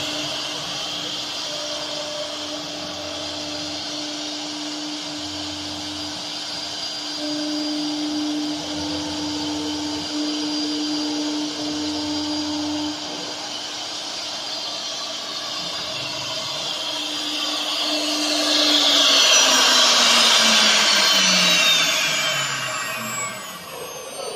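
AKM1325 CNC router running: a steady spindle whine, with the machine working harder in stretches of a second or two. About 18 seconds in, the spindle is switched off and winds down with a falling whine.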